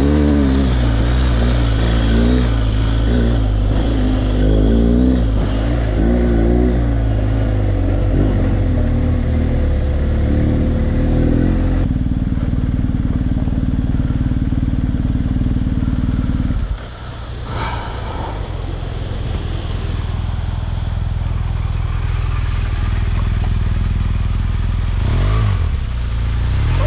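BMW R1250GS Adventure's boxer-twin engine running while the bike rides a rough dirt track, settling to a steady idle about twelve seconds in. Later a fast creek rushes, with a motorcycle engine running low under it and briefly revving near the end.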